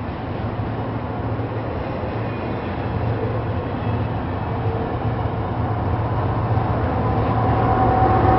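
Double-stack intermodal freight train rolling past, with steady wheel-on-rail rumble and a low hum. The sound grows gradually louder toward the end as the rear distributed-power locomotive draws near.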